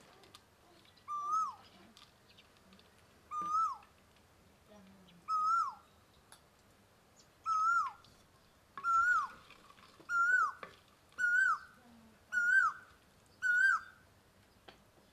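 An animal calling over and over: about nine short calls, each rising and then dropping sharply in pitch. The calls come faster and slightly higher toward the end.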